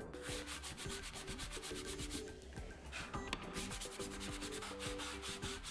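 Sanding block rubbed back and forth over a drilled plywood strip: a run of repeated scratchy strokes.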